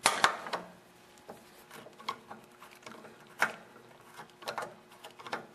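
Large Phillips screwdriver turning out a screw that holds the carburetor to the engine, with scattered small metal clicks and scrapes. The sharpest clicks come about a quarter second in and about three and a half seconds in.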